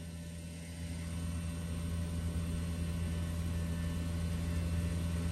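Carrier Infinity variable-speed heat pump outdoor unit running in heating: a steady low hum from the inverter compressor, turning about 5,000 rpm, and the outdoor fan. The compressor is pumping normally.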